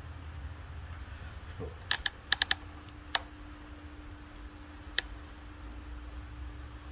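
A few sharp clicks: a quick cluster about two seconds in, then single ones about a second and about three seconds later. Under them a faint steady hum sets in about two and a half seconds in, over a low background rumble.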